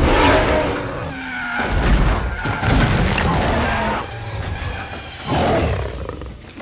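Film action sound mix of heavy crashes and thuds, about four big hits, with a car engine and sliding tyres and music underneath.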